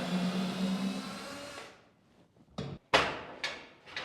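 A cordless drill/driver runs steadily for about a second and a half and then stops, as a garage door roller bracket is unbolted and refitted. A few sharp metal clicks and knocks follow near the end as the hardware is handled.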